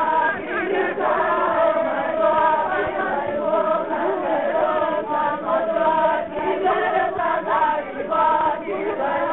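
A group of voices singing together in a chant-like song.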